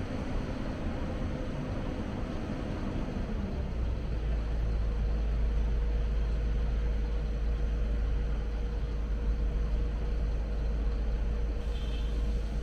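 Diesel engine of heavy construction machinery running steadily, a deep rumble that grows stronger about three and a half seconds in, with a steady hum over it.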